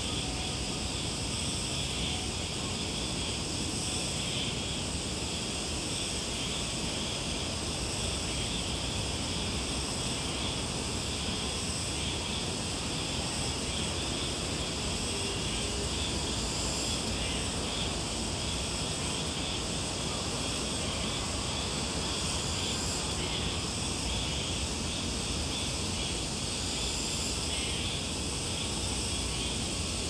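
Summer insect chorus: a steady, high-pitched shrilling at several pitches at once, unbroken throughout, over a low steady rumble.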